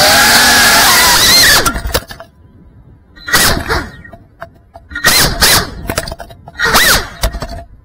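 FPV quadcopter's brushless motors and propellers whining. The pitch rises with a long throttle punch at the start and then drops away, followed by three shorter throttle bursts.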